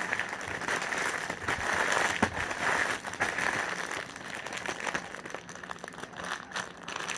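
Rustling and crinkling as hands rummage through a small basket of squishy toys, with scattered small clicks, a little louder in the first half.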